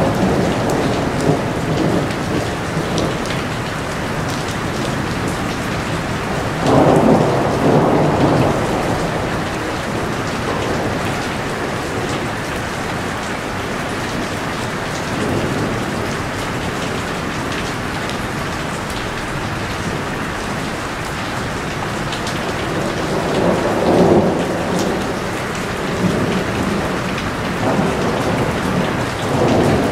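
Heavy rain falling steadily, with louder swells about a quarter of the way in and again near the end.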